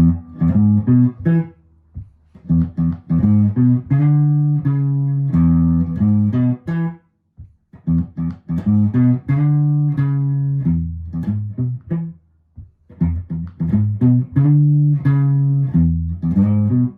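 Guitar playing the song's bass line as single plucked notes on its low strings, an E, G sharp, B riff with a bouncy feel. It comes in short repeated phrases broken by brief pauses.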